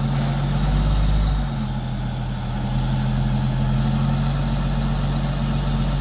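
Heavy diesel engine idling steadily, with a deep rumble underneath that drops away about a second and a half in.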